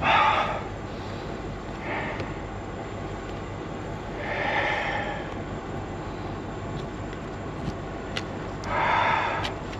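Steady low rumble of an idling diesel truck engine, with four short hissing bursts spread through it.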